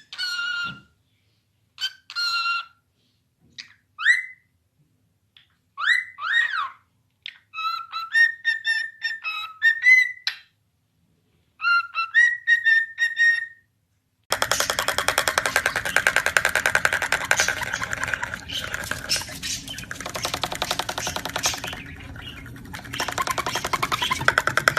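A pet parrot whistling and calling in short bursts, some of them rising and falling glides, with pauses between. About halfway through, continuous background music starts and runs on.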